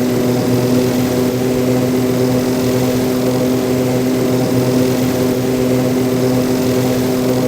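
ATR-72 turboprop's propellers and engines running, a steady droning hum at an even pitch with a hiss of air over it.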